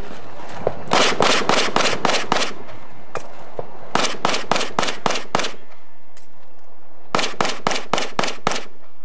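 Pistol fired in three fast strings of about six shots each, roughly four shots a second, with short pauses between strings and a couple of single shots in the first pause.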